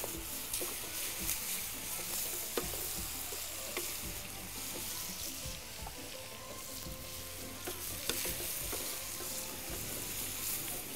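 A mixture of diced shrimp, potatoes and dried black lime sizzling in an aluminium frying pan over a gas flame. It is stirred with wooden spatulas, which give a few sharp scrapes and knocks against the pan.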